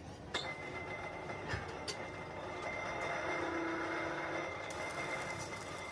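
A few sharp metal clinks as steel hanger plates are handled and set in place, three times in the first two seconds, over steady workshop noise with a high whine that starts with the first clink; a lower drone comes in for about a second midway.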